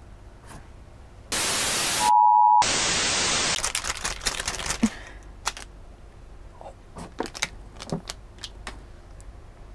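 A burst of TV-style white-noise static a little over a second in, lasting about two seconds. It is broken by a brief steady beep in a moment of silence. Scattered small clicks and taps of hands handling plastic film follow.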